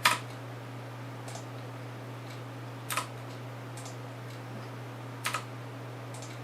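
Occasional sharp clicks of a computer mouse and keyboard, including a quick double click past the middle, over a steady low hum.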